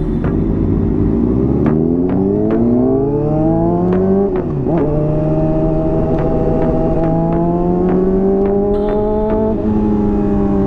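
Honda CBR600RR inline-four sport bike engine with a Hotbodies Stinger slip-on exhaust, accelerating hard with rising revs. About four and a half seconds in the pitch drops sharply at an upshift, then climbs slowly through the next gear and eases off slightly near the end.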